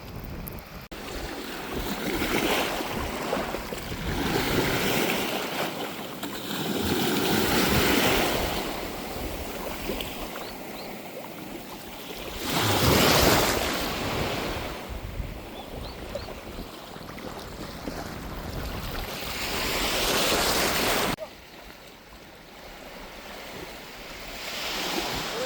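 Sea waves breaking and washing up, swelling and falling back every few seconds. About 21 seconds in, the sound drops suddenly to a quieter wash.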